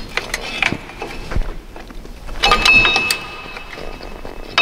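Metal clinks and knocks of drum brake hardware being worked into place by hand: the primary brake shoe, its spring and the self-adjuster levered onto the backing plate. About two and a half seconds in a louder metallic clank rings briefly.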